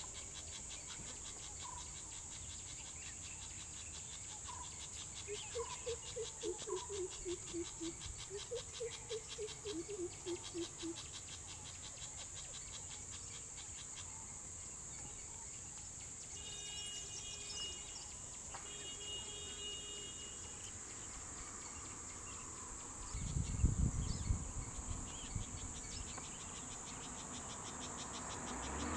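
Steady high-pitched buzz of insects from roadside forest, with a bird calling two runs of low hoots that fall in pitch a few seconds in and other bird notes later. A brief low rumble comes about two-thirds through, and a vehicle starts to approach near the end.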